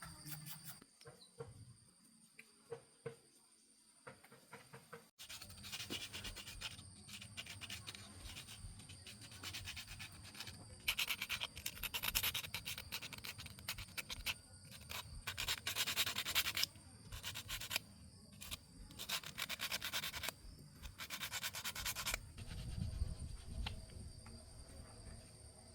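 Rapid scraping or rubbing strokes, in several bursts separated by short pauses.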